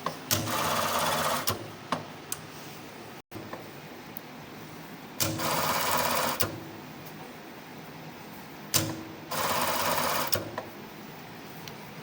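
Singer 1377 button-attach sewing machine running three short sewing cycles of about a second each, every one starting and stopping abruptly, with sharp clicks around each run.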